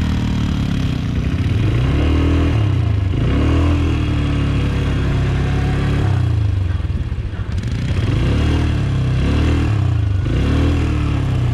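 ATV engine running, revved up and down repeatedly so that its pitch rises and falls in short swells.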